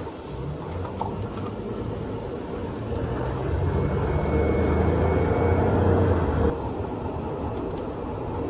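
Pickup truck cabin noise while driving: engine and road rumble that swells over a few seconds, then drops abruptly about six and a half seconds in.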